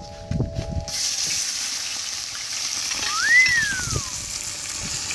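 Sliced onions tipped into hot oil and lamb fat in a kazan, setting off a sudden loud sizzle about a second in that then runs on steadily as they fry. A single short whistle rises and falls a little over three seconds in.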